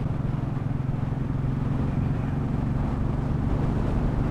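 Motorcycle engine running at a steady cruising speed, a constant low drone with road and wind noise.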